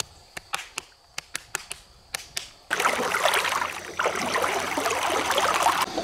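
A quick series of sharp slaps, about four or five a second, from a hand patting a bare belly. About two and a half seconds in, this gives way abruptly to continuous splashing and sloshing of water churned by a hand, which stops just before the end.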